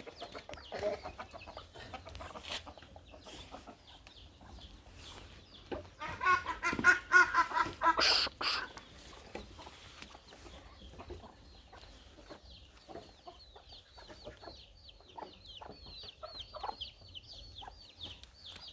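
Chickens clucking, with a louder run of calls about six to eight seconds in, and rapid high chirping through the second half.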